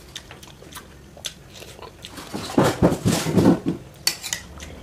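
Close-up chewing and mouth sounds of a person eating a mouthful of rice and chicken, with a loud run of rapid chewing about halfway through and a sharp click near the end.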